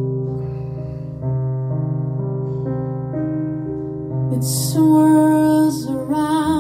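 Recorded music played through Auer Acoustics Versura V4 loudspeakers driven by Soulution Audio 701 amplifiers: slow, held keyboard chords over a deep bass note that changes every couple of seconds. From about four and a half seconds in, a louder melodic line with a wavering vibrato, like a singing voice, comes in over the chords.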